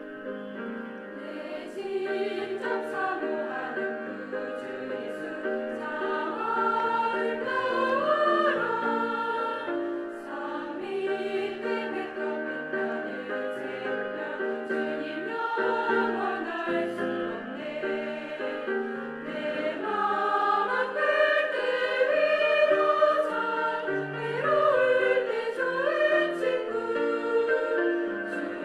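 Church choir singing an anthem, many voices together in sustained, rising and falling sung lines.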